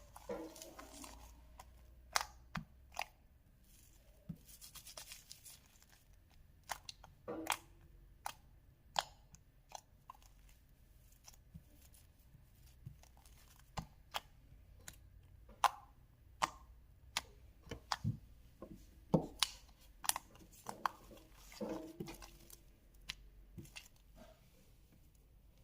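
Slime being handled and worked by hand: irregular, faint sticky clicks and pops, often one or two a second.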